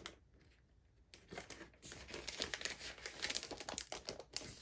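Packaging crinkling and rustling as a wrapped message pad is handled and opened, starting about a second in.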